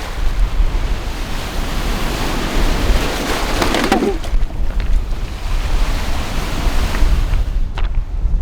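Lake Superior waves washing on the shore under heavy wind buffeting the microphone, with a louder splash about three to four seconds in and a few sharp clicks near the end.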